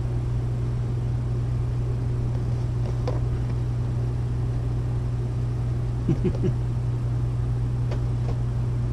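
Steady low machine hum running throughout, with a few light knocks as a cardboard Funko Pop box is picked up and handled, and a brief short sound about six seconds in.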